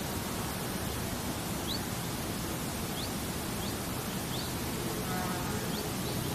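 Steady, even outdoor hiss by a pebbly streamside, with several faint, short, high chirps scattered through it.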